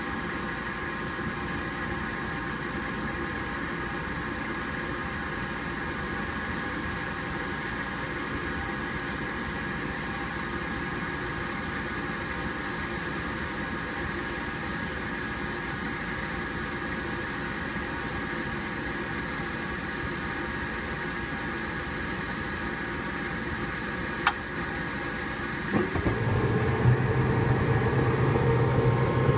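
Gas furnace starting up: its draft inducer motor runs steadily with a faint whine while the hot surface igniter heats. One sharp click comes about 24 seconds in, and shortly after the burners light: the sound grows louder, with a low hum added.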